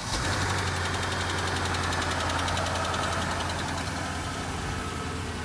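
Mercedes CLS550's V8 engine running at idle just after being started, a steady low note.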